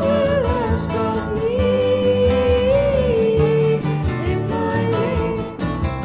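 1975 British Christian folk-rock song: a sung melody with long held notes that glide between pitches, over guitar, bass and drums keeping a steady beat.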